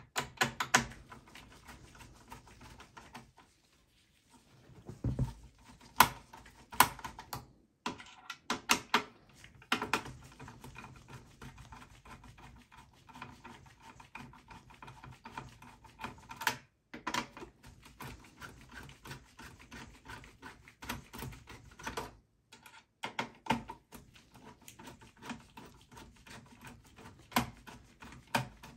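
A screwdriver loosening the screws of a desktop PC's CPU heatsink gives irregular sharp clicks and small metal taps, with brief pauses between bursts.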